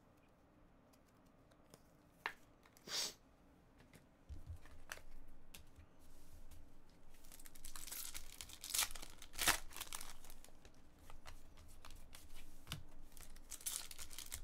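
A foil trading-card pack being crinkled and torn open by hand. It is mostly quiet for the first few seconds apart from a couple of brief clicks. Crinkling starts about four seconds in and builds into sharp tearing and rustling of the foil wrapper through the second half.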